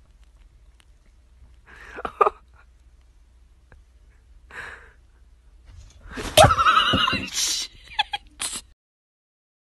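A cat with its head inside a plastic cup gives short snort-like bursts, then the cup of water is knocked over with a loud clatter and splash.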